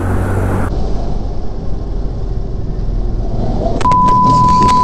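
Scooter engine running as it is ridden along, with road noise. About four seconds in, a loud, steady high beep starts and holds, with a few sharp knocks around its start.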